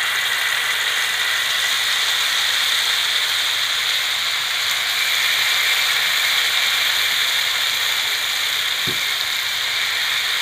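Dried ribbonfish pieces coated in chilli paste sizzling steadily in hot sesame oil on a dosa tawa. There is one soft knock near the end.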